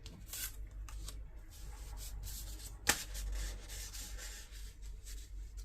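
Paper and cardstock being slid and rustled across a craft desk by hand, a run of short scratchy rubbing strokes, with one sharp click or tap a little under three seconds in.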